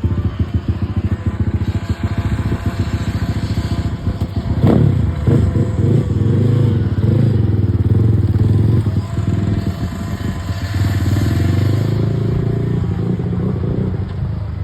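Single-cylinder Zongshen ZS177MM engine of an Omaks R15 motorcycle running through a straight-through Akrapovic-style exhaust, idling with even firing pulses. About four and a half seconds in, the throttle is blipped sharply and the revs rise and fall. After that it runs at higher, uneven revs.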